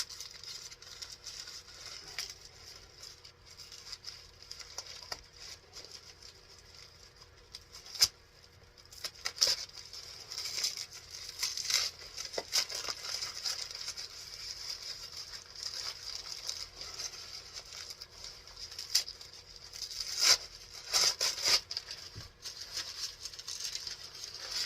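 Heavily taped packaging being worked open by hand: packing tape tearing and plastic or paper wrapping crinkling, broken by irregular sharp clicks and taps, with a few louder cracks.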